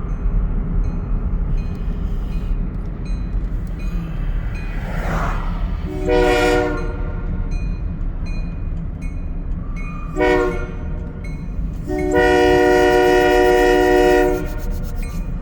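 Great Lakes Central diesel locomotive's air horn sounding two short blasts and then one long blast, over a steady low rumble.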